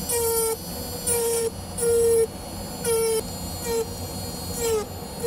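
Handheld rotary tool with a small ball burr carving a blue wax earring model, sounding in short buzzing bursts about twice a second as the burr is pressed to the wax, the pitch sagging at the end of each stroke.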